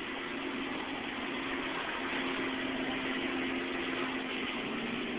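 Steady hum and hiss of background room noise, with a faint constant tone; no distinct events.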